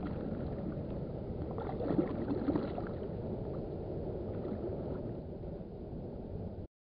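Muffled, steady shallow-water noise with a few light splashes about two seconds in as a bass is let go by hand at the water's edge. It cuts off suddenly near the end.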